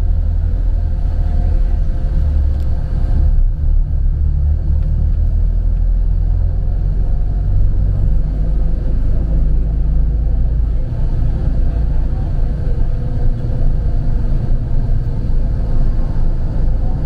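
Steady low rumble of engine and road noise inside a moving bus at highway speed.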